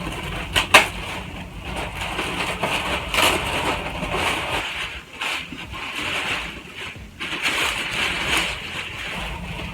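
Rustling and crinkling as a tote bag and its wrapping are handled and opened out, in uneven bursts with a sharp crackle about a second in.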